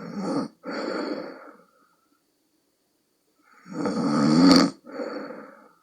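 A sleeping woman snoring loudly with a deep, croaking, bullfrog-like snore. Two breaths are heard, each a snore in two parts. The second breath, about four seconds in, is the loudest and ends its first part with a sharp snort-like click.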